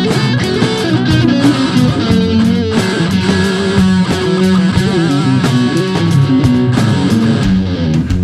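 Background music led by guitar: a rough, home-recorded scratch track.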